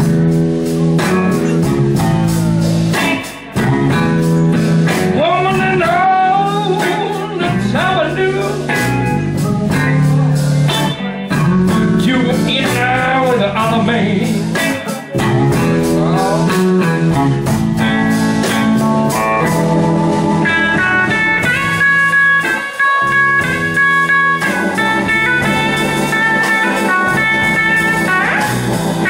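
Slow electric blues played live by a band, with a Telecaster-style electric guitar taking an instrumental solo full of bent notes. Near the end the lead settles into longer held notes.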